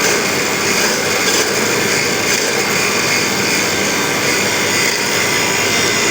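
Power tool running steadily under load while sharpening the teeth of a crosscut saw blade.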